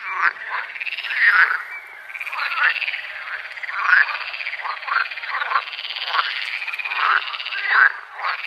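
A chorus of many frogs calling at once: a continuous pulsed trill with louder, shorter calls overlapping on top of it, about one or two a second.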